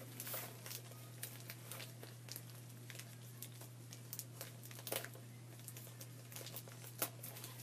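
Faint crinkling and rustling of a mail package being handled as it is opened, with scattered small clicks.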